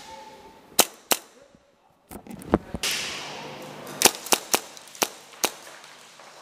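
Airsoft pistol firing single shots, sharp cracks: two early on the move, then five in quick succession from about four seconds in.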